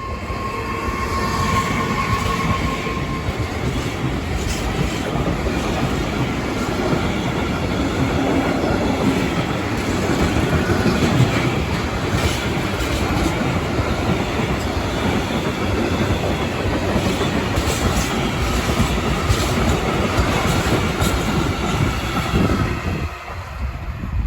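A train passing at close range: a loud, steady rush of wheels on rail with scattered clicks as the wheels run over rail joints and points, and a thin whine in the first few seconds. The sound drops away near the end as the train clears.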